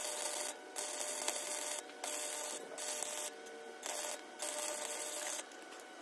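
Abrasive rubbing strokes, about six in a row, each lasting under a second with short breaks between them, growing weaker near the end.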